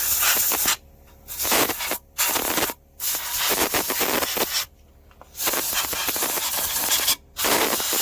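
Compressed-air blow gun blasting oil out of holes in a BMW M57 diesel engine during a teardown. It comes as about six hissing blasts, each from under a second to nearly two seconds long, with short gaps between them.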